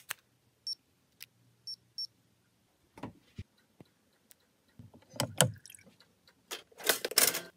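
Quiet clicks and handling noises with three short high beeps from a blood glucose meter during a finger-stick test, then a clatter near the end as toast is dropped into a toaster.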